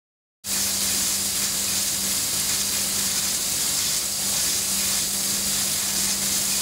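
Two submersible pumps running in shallow water: a steady hum under a steady hiss of churning water. The sound starts abruptly about half a second in.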